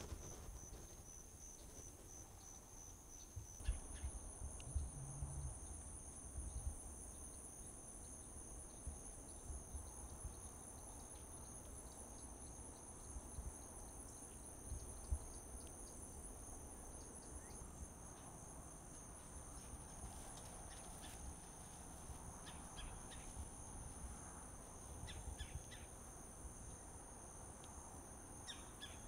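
Insects trilling steadily in two high, unbroken tones, the higher one joining about four seconds in. A few soft low thumps and scattered faint clicks sit beneath.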